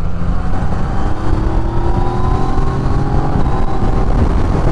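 Yamaha Tracer 900 GT motorcycle's three-cylinder engine pulling under load, its note rising steadily as the bike accelerates through an overtake. Heavy low wind rumble is on the helmet microphone.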